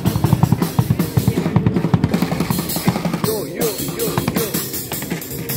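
Street drummer playing a fast, dense beat on a compact drum kit, with snare, bass drum and cymbal strikes.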